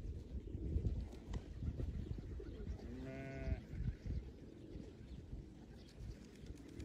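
A single short bleat from a sheep or goat, about half a second long with a wavering pitch, heard about three seconds in over low, uneven background noise.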